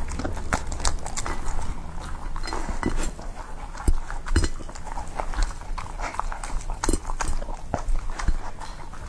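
A Samoyed eating wet canned food from a ceramic bowl close to the microphone: wet chewing and lip-smacking with quick, irregular clicks, and a few louder knocks against the bowl.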